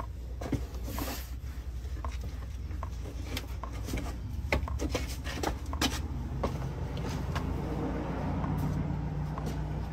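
Irregular clicks and knocks of hand tools and parts being handled, over a low steady hum.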